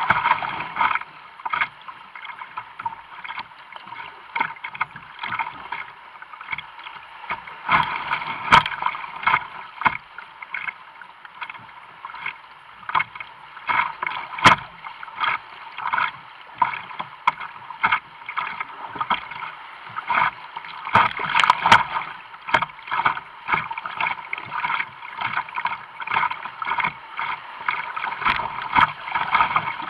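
Kayak running flood-swollen whitewater: a steady rush of water with irregular splashes against the hull, and a few sharper, louder splashes as waves break over the bow.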